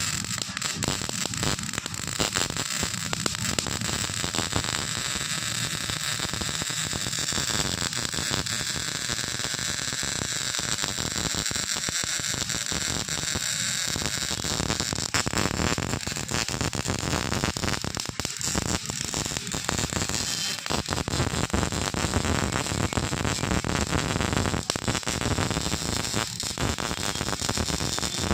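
Electric arc welding: a steady, dense crackle of many fine clicks that runs on without a break.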